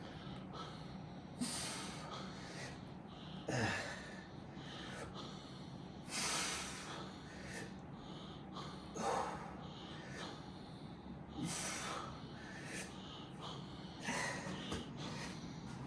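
A person breathing hard through a set of dumbbell shoulder raises, with a sharp exhale about every two and a half seconds, roughly one per repetition.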